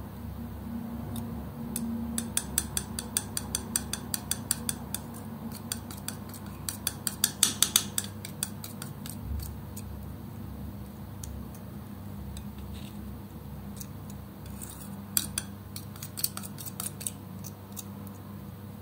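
Metal palette knife working through thick wet acrylic paint on a hard surface, making a quick run of sharp clicks and wet smacks. The clicks come thickest about seven seconds in and again in a shorter cluster near the end.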